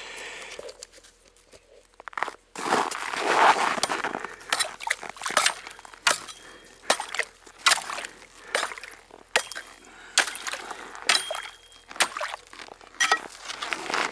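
A rustle of clothing or tent fabric, then footsteps crunching in cold, frozen snow, about two steps a second.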